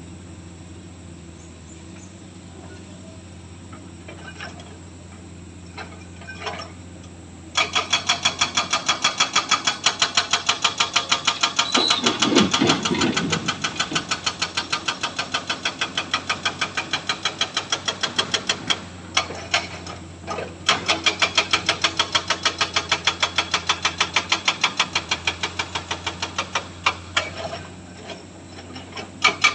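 Diesel engine idling steadily, then about seven seconds in a hydraulic breaker hammer starts pounding rock in a fast, even rhythm of about four to five blows a second. It stops briefly twice and starts again.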